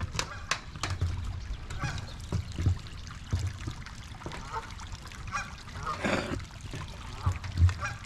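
Geese honking repeatedly, a short call every half second or so, over low muffled thumps.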